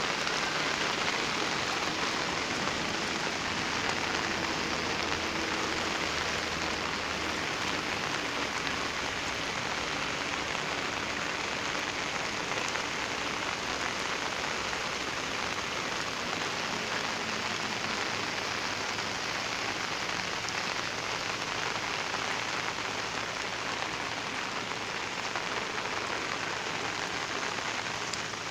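Heavy rain falling steadily: a dense, even hiss of drops with no letup.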